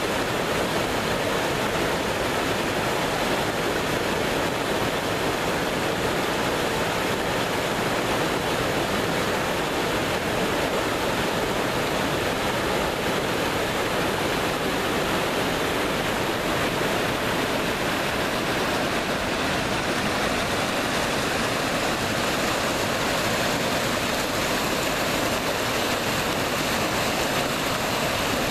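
Mountain stream rushing over boulders in small cascades: a steady, unbroken rush of water.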